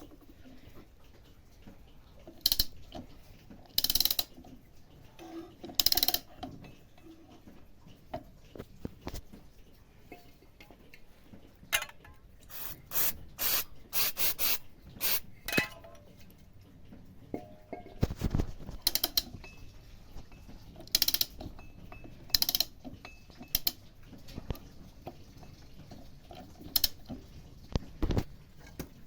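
Irregular metallic clicks and knocks of hand tools and mower parts being handled, with a quicker run of ratchet-like clicking about halfway through.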